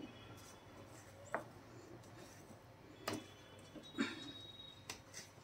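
Wooden spatula stirring thick wheat halwa in a brass pan: a faint sound with a few soft taps of the spatula against the pan.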